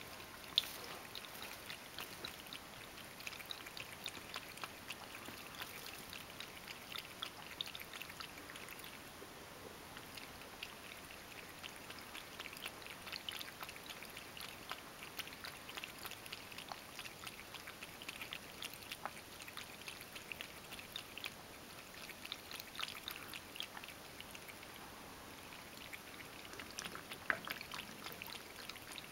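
Ragdoll cat lapping water from a plastic bowl: a fast, faint run of small wet ticks and splashes that goes quieter now and then, with a few sharper clicks.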